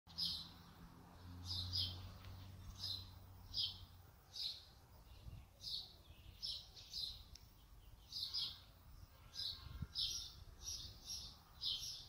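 A small songbird chirping over and over, short high chirps coming about once or twice a second, with a faint low hum beneath them during the first few seconds.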